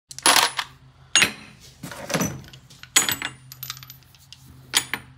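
Loose steel sockets clinking against one another and the metal drawer as they are picked up and set down, a series of sharp metallic clinks with a short bright ring, roughly one a second.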